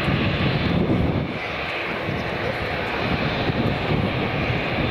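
Boeing 787 jet engines running at low thrust as the airliner rolls slowly along the ground, a steady rushing jet noise with a low rumble underneath.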